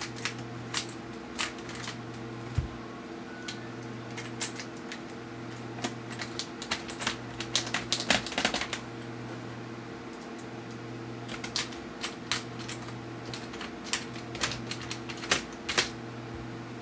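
Irregular small metallic clicks and ticks of small screws and a screwdriver being handled as the screws around a laptop's LCD bezel are driven back in, over a steady low hum.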